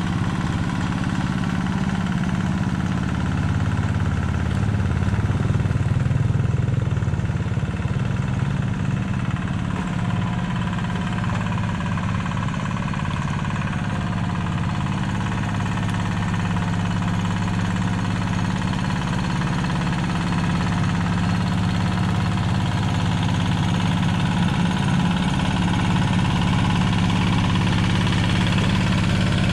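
Yanmar single-cylinder diesel engine of a two-wheel hand tractor running steadily under load while plowing a flooded rice paddy, with a low, even beat.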